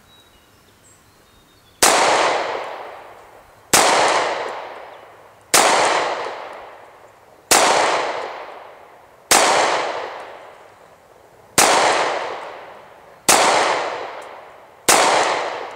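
Eight shots from a Rock Island Armory 1911 pistol in .45 ACP, starting about two seconds in and fired at a steady pace about two seconds apart, each shot followed by a long echo dying away.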